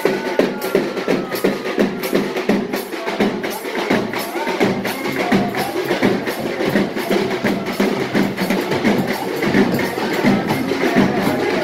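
Temple-festival drum ensemble playing a fast, dense, unbroken rhythm of sharp strokes.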